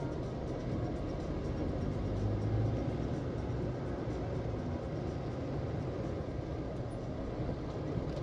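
A car being driven: steady engine and road noise, with a brief swell in the low rumble about two seconds in.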